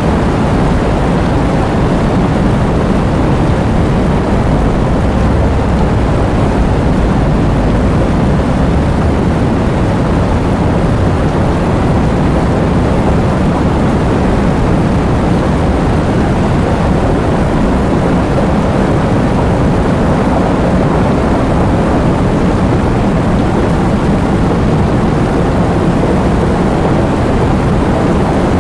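Heavy rain driven by strong wind: a steady, dense noise weighted toward the low end.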